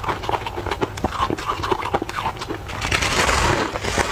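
Close-up crunching and chewing of a crispy, crumbly tartary-buckwheat snack, a rapid run of crackling crunches. Near the end a fresh bite sets off a louder, denser burst of crackling.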